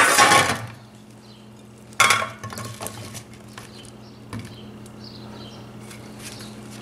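An old enamelled metal platter clatters as it is set down on the countertop, then about two seconds in oiled, seasoned potato chunks tumble out of a bowl onto it with a second clatter. A light click follows a couple of seconds later as the chunks are moved by hand, over a steady low hum.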